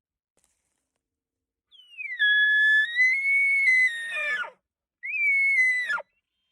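Elk bugle: a glide down into a long, high whistle held for about two and a half seconds, which breaks off falling. About half a second later a second, shorter whistle follows.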